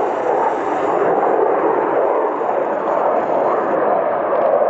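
Twin-engine jet noise from a MiG-29M OVT thrust-vectoring fighter flying a display manoeuvre: a loud, steady rush of engine noise without breaks.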